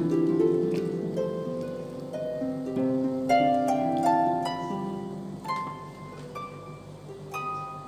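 Background music: a light melody of plucked notes that climb upward in quick steps in the middle.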